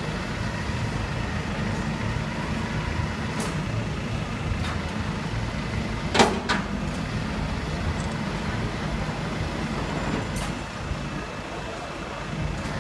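Recovery truck's engine running steadily, with a few sharp metallic clanks over it, the loudest about halfway through.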